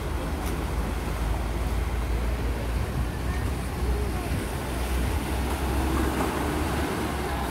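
Steady low outdoor rumble with an even hiss above it, and faint distant voices from about halfway through.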